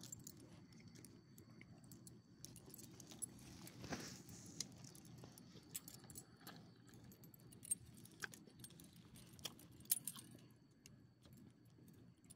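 Metal ID tags on a small dog's collar jingling in scattered light clinks as the dog moves and shakes its head.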